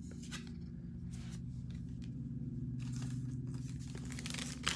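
Baseball trading cards and pack wrappers being handled: soft scrapes, rustles and small clicks that get busier after about three seconds, over a steady low hum.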